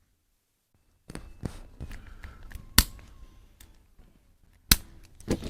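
Sharp, single clicks of a spring-loaded chiropractic adjusting instrument (activator), two loud ones about two seconds apart among quieter taps and rustling.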